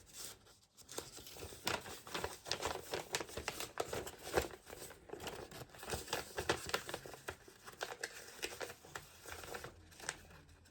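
Paper instruction leaflet being unfolded and handled: irregular crinkling and rustling for most of the stretch.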